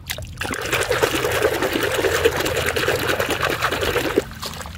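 Water sloshing and splashing as a hand swishes and scrubs a plastic toy in a basin of muddy water, stopping about four seconds in.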